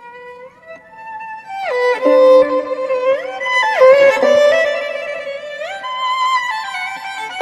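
Background music: a bowed-string melody of held notes that slide up and down between pitches.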